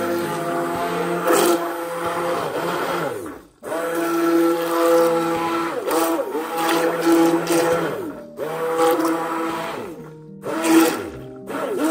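Hand-held immersion blender running in a steel pot of vegetable purée, its motor whine dipping and bending in pitch as the blade is worked through the thick mixture, with short pauses about three and a half and ten seconds in.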